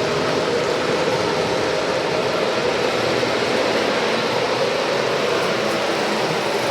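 O gauge model train running on the layout's track, a steady rumble with no break.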